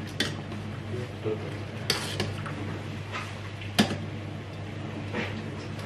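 A metal kitchen utensil knocking and clinking against steel cooking pots, about four sharp knocks with the loudest about two-thirds through, over a steady low hum.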